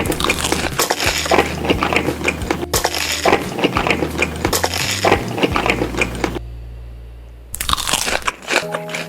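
Close-miked crunchy chewing and biting: a dense crackle of crunches that stops about six seconds in and comes back briefly near the end.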